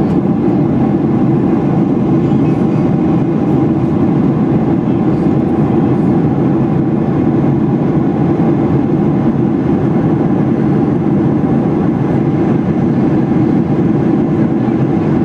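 Steady low drone of jet engines and rushing air, heard inside the cabin of a Boeing 737 airliner in cruise flight.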